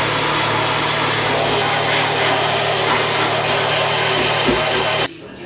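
Power grinder running steadily on sheet metal with a high whine, then cutting off suddenly about five seconds in.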